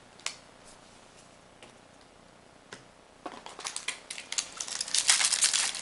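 A sharp click and a few light taps as a stack of cards is handled, then the foil wrapper of a Magic: The Gathering booster pack crinkling as it is pulled from the box and handled, getting louder over the last two seconds.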